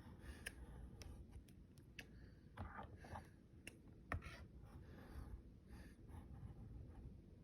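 Faint scattered clicks and light taps with brief rustles over a low room hum; the sharpest tap comes about four seconds in.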